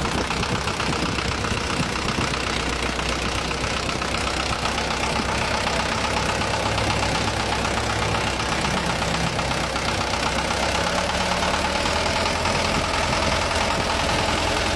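Mitsubishi Canter truck's diesel engine idling steadily with a clattering knock, run for an engine check.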